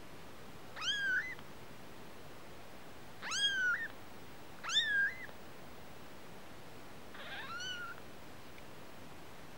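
Newborn kitten mewing: four short high-pitched cries, each rising sharply in pitch and then levelling off, the last one fainter.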